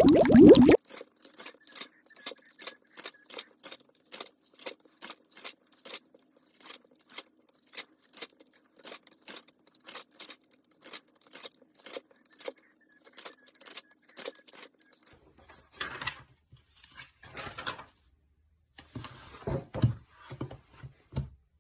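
A run of sharp, light clicks or taps, two or three a second and not quite even, in a small room; near the end they give way to a few seconds of rustling and handling noise.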